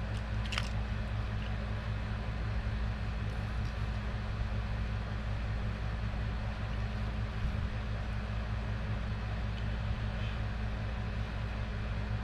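Steady low hum of background room noise, with a faint click about half a second in.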